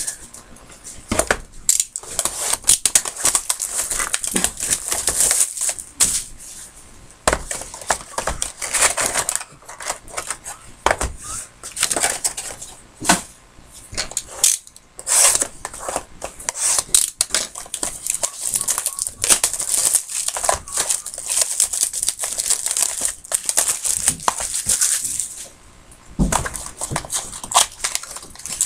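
Trading-card boxes and packs being opened and handled by hand: a continuous run of scratchy tearing, crinkling and rustling of cardboard and wrapper, with short clicks as cards and boxes are set down on a desk.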